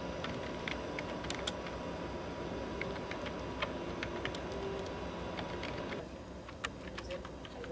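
Steady background hum and hiss with a faint high tone, and scattered sharp clicks; the hum drops off about six seconds in while the clicks continue.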